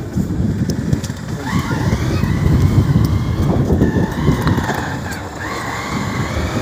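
Wind rumbling on the microphone over a vehicle running on the road, with a wavering whine that rises and falls from about a second in.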